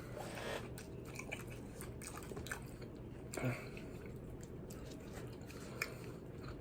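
A person chewing food close to the microphone, with scattered small wet mouth clicks and one louder smack about halfway through.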